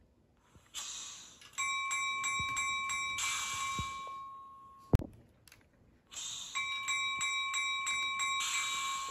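Sound decoder playing a recorded EMD 8475495 steel locomotive bell twice. Each run rings at about four strokes a second for roughly three seconds, then fades out. A sharp click comes about five seconds in, between the two runs.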